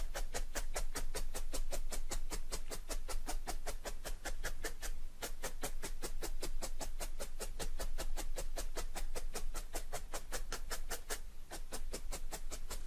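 Felting needle stabbing repeatedly through loose wool into a dense foam mat, a steady run of sharp pokes about five a second that thins out near the end, tacking a patch of wool down onto the backing.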